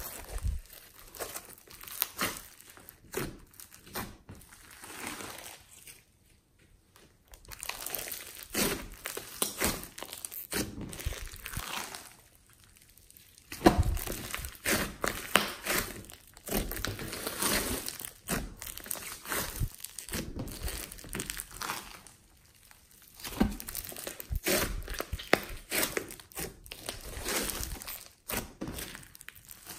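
Hands squeezing, stretching and kneading a large lump of foam-bead slime, the beads giving off dense, irregular crackling clicks. It comes in bouts broken by short pauses.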